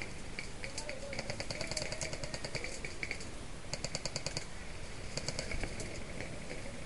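Airsoft rifles firing in rapid full-auto bursts, a quick run of sharp clicks about a dozen a second, three main bursts about a second, four seconds and five seconds in, with scattered single shots between.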